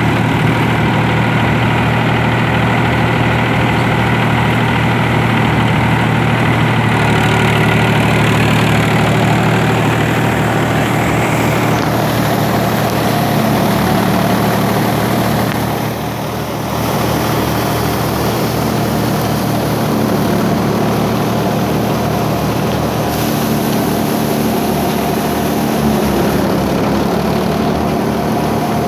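Mahindra tractor's diesel engine and the straw thresher it drives running steadily together as straw is fed in, a continuous machine drone with a brief dip in level about sixteen seconds in.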